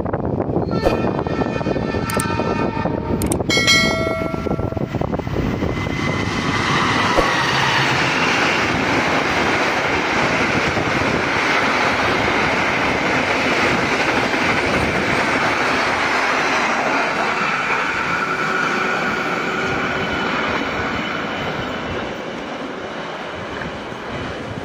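Diesel-hauled KAI passenger train sounding its horn as it approaches, a long blast then a shorter one, then running through the station at speed without stopping: a loud rush of wheels on rail and passing coaches with some clickety-clack, fading near the end as the train moves away.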